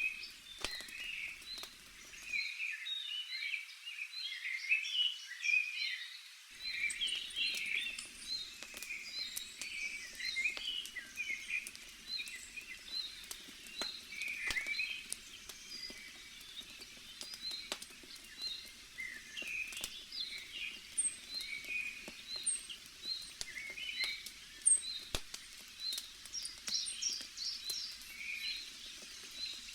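Crackling bonfire, its sharp pops scattered through, under a chorus of birds chirping; one bird repeats a short high note over and over.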